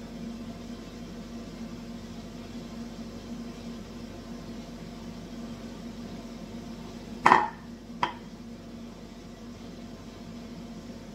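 A fork beating eggs in a ceramic bowl: a faint, steady whisking over a low hum. About seven seconds in comes one loud knock, then a lighter ringing clink a moment later.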